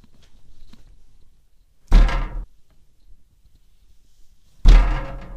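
Two loud bangs on a window from outside, a little under three seconds apart, each setting the glass ringing in its frame for about half a second. Nothing can be seen outside to make them.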